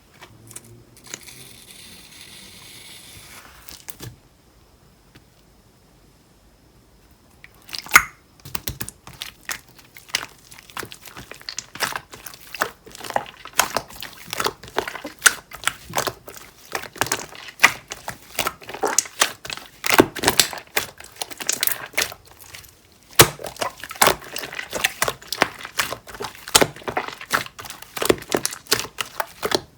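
Pink clear slime being squished and kneaded by hand with shaving foam mixed into it, making rapid, irregular wet clicks and pops from about eight seconds in. Near the start there are about three seconds of steady hiss, shaving foam being sprayed from its can.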